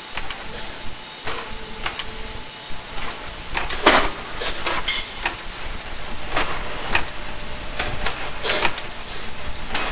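Ultrasonic nonwoven mask body making machine running: a steady mechanical noise with irregular clicks and clunks from its moving parts, the loudest knock about four seconds in.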